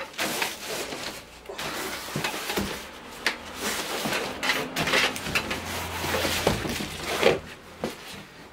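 Cardboard box scraping and rustling as a heavy aluminium T-slot base plate is hauled up out of it, with scattered knocks and clicks of the plate against the box; one sharper knock comes about seven seconds in.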